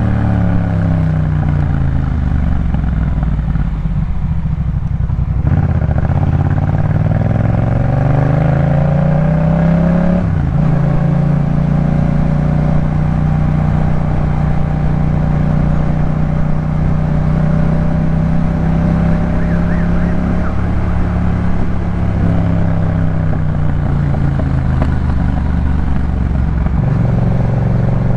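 2018 Yamaha MT-07 parallel-twin engine breathing through a Jeskap K4 full exhaust, ridden on the road. The revs fall for the first few seconds, then climb, with a gear change about ten seconds in, after which the engine holds a steady cruise.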